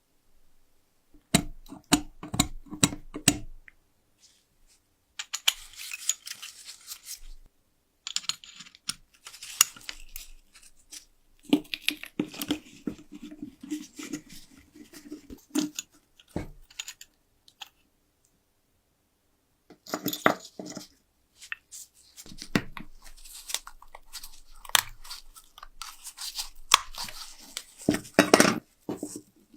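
An old brass lighter being worked on by hand: clusters of sharp metallic clicks and knocks and short rasping stretches, broken by silent gaps.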